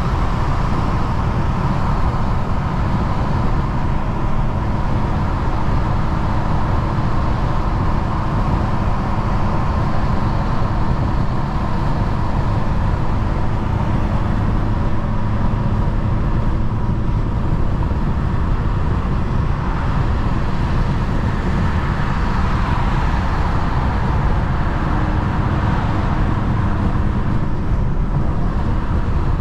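BMW 435i with a tuned N55 turbocharged inline-six driving at a steady pace, engine and road noise heard from inside the cabin.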